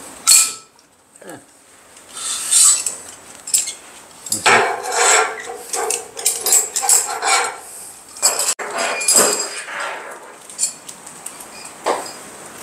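Metal buckles and fittings on a scuba harness and backplate clinking and rattling against each other and the table as the webbing is handled, with a sharp snap from the tank band's cam buckle just at the start.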